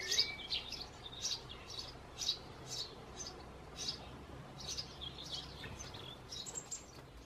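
Eurasian tree sparrow nestlings begging from inside the nest box: short high chirps repeating about twice a second, growing fainter near the end.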